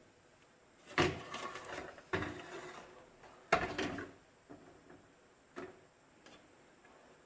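Clatter and knocks of hard parts being handled, three louder bouts of rattling about a second apart early on, then a couple of single clicks.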